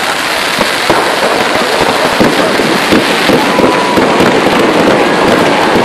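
Fireworks going off in a dense barrage: rapid crackling and popping over a steady hiss, with a faint high whistle or two in the second half.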